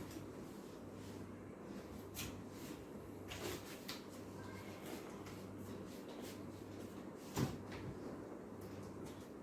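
Quiet room with a steady low hum, a few faint clicks and soft knocks, and one sharper knock about seven seconds in.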